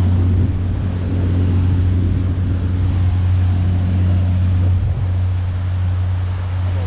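Motorboat engine running steadily as a constant low drone, with wind noise on the microphone.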